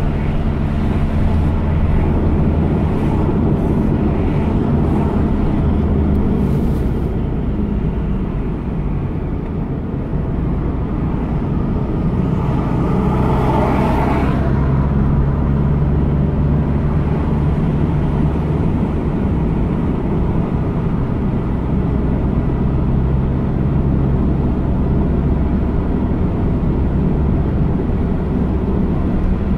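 A car driving at a steady speed: a continuous low engine hum and road rumble, with a brief swell of louder, higher noise in the middle.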